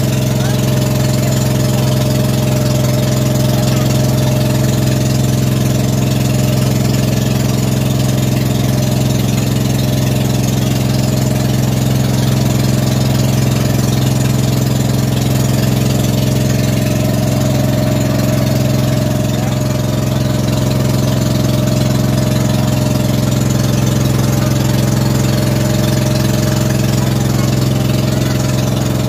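Engine of a motorized outrigger boat (bangka) running steadily under way, a loud, even low hum that dips slightly about two-thirds of the way through.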